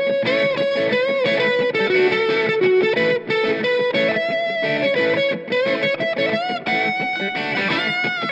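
Squier Classic Vibe Telecaster Custom electric guitar playing a single-note lead line with string bends and vibrato.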